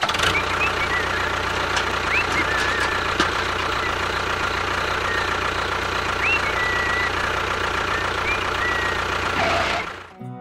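Small engine running steadily at a constant speed, with a few short birdlike chirps over it about two, six and eight seconds in. The sound stops abruptly near the end.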